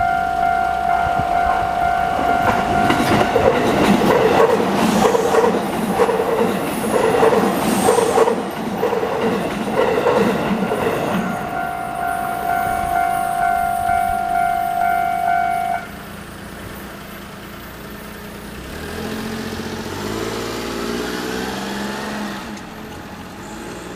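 Japanese level-crossing alarm ringing its standard steady tone while a JR Yokohama Line train passes with loud rattling wheel clatter that drowns it out. The alarm returns after the train and cuts off about 16 seconds in, and a lower whine with gliding tones follows.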